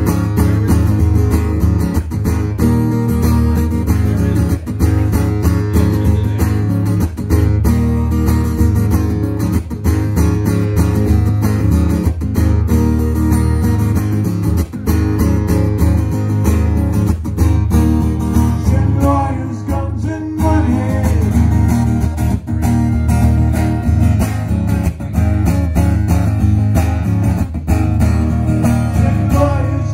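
Amplified acoustic guitar strummed in a steady rhythm during a live solo performance.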